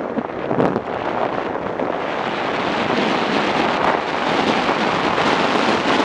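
Wind rushing over the microphone of a camera on a moving motorcycle, a loud even roar that grows a little louder over the first few seconds.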